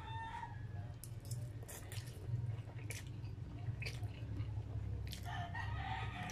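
Close-up eating sounds: noodles in chicken soup being chewed and slurped, with a few sharp wet clicks and smacks of the mouth and metal fork and spoon. A steady low hum runs underneath.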